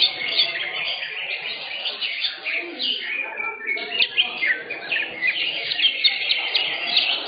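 Several caged green leafbirds (cucak hijau) singing at once, a dense, overlapping stream of quick chirps and whistled glides with no break.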